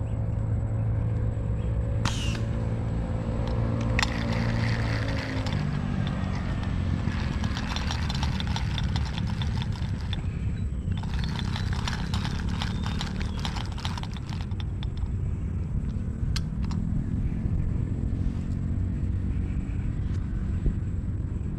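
Low, steady engine drone of a motor vehicle, its pitch sliding down in places. A high, pulsing buzz comes in twice over it, for a few seconds each time.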